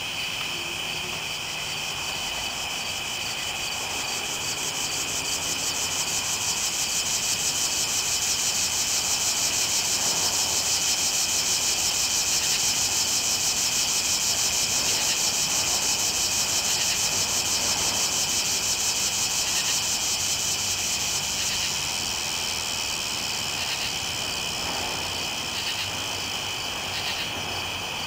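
Night insect chorus: a steady high trill with a faster, even pulsing buzz above it, which swells louder through the middle and eases off toward the end.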